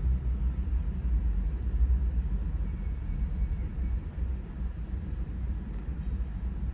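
Low, steady rumble in a car's cabin, with a faint high steady tone and one short click about six seconds in.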